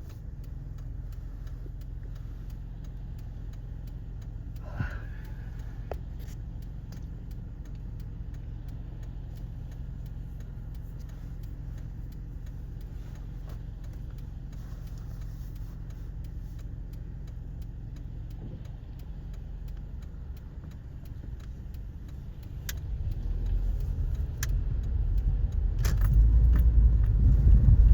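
Road noise of a car being driven, heard from inside the cabin: a steady low rumble that grows clearly louder over the last several seconds, with a few faint clicks.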